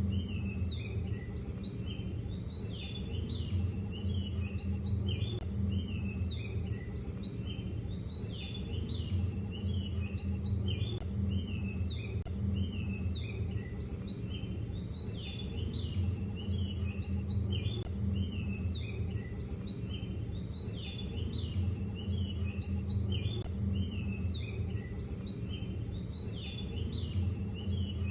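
Many small birds chirping and twittering continuously, over a steady low hum.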